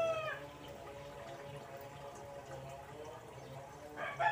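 Water being poured into a cooking pot, faint and even. A rooster starts crowing right at the end.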